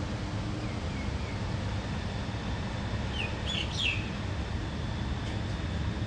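Steady rain falling on plants and trees, a constant hiss with a low rumble. A bird chirps a few times about halfway through, with fainter chirps near the start.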